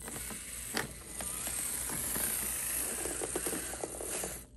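Basher Rocksta 1/24-scale mini rock crawler's electric motor and gears running with a steady high whine while crawling, with scattered knocks of the tyres and chassis on rock. It cuts off near the end. The drivetrain is noisy, which the owner thinks could be a gear mesh issue.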